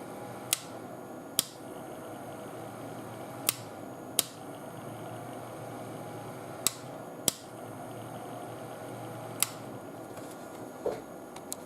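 Sharp clicks of a power switch being flipped on and off, mostly in pairs less than a second apart, over a steady whir from the running ATX power supply's cooling fan under load.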